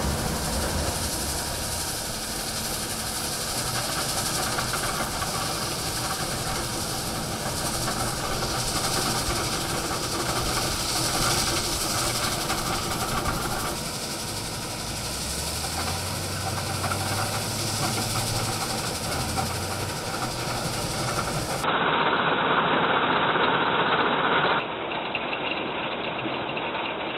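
Steady running noise of a 200 TPH three-stage stone crushing and screening plant: conveyors and machinery rumbling with the hiss and rattle of crushed stone. About three-quarters of the way through it changes abruptly to a louder, duller rush for a couple of seconds, then settles.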